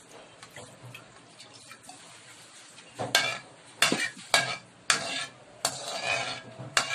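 Water and melted butter sizzling faintly in a hot wok, then from about three seconds in a metal spatula scraping and knocking against the wok in quick, loud strokes, a little under two a second.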